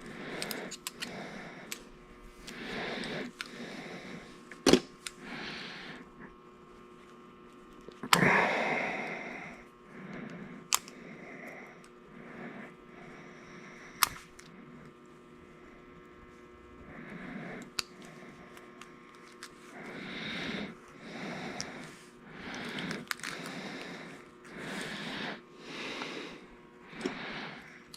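Hands working a car trunk lock assembly apart and back together: scattered sharp clicks and taps of the small lock parts between soft rustling, over a faint steady hum.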